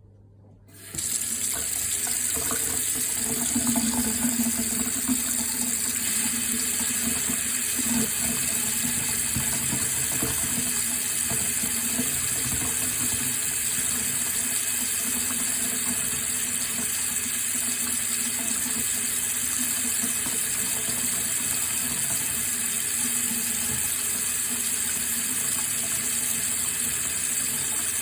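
Water running steadily, starting about a second in: a continuous even hiss and splash.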